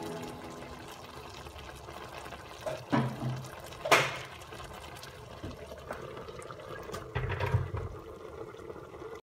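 Shrimp simmering in butter sauce in a pan, the sauce bubbling steadily, with a couple of sharp knocks. A glass pot lid is set down on the pan near the end with a low clatter.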